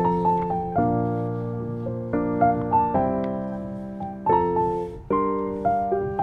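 Background piano music: chords and single melody notes, each struck and then fading, changing every second or so.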